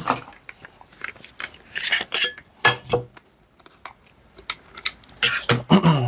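Small metal tools clinking and clattering as a screwdriver is fetched, a string of sharp clicks with a pause of about a second and a half in the middle and the loudest clatter near the end.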